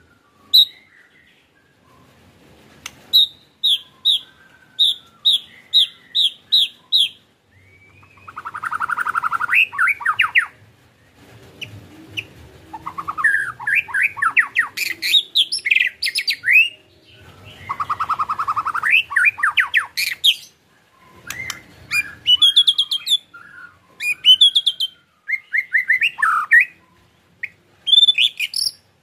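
Male white-rumped shama (murai batu) singing a varied song. It opens with a quick run of repeated whistled notes, then gives fast buzzing rattle phrases (the 'ketrekan' call) mixed with sweeping whistles and chirps.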